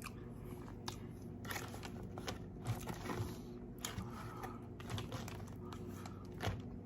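Close-up eating sounds: a person chewing food, with scattered wet mouth clicks and light crinkling, over a low steady hum.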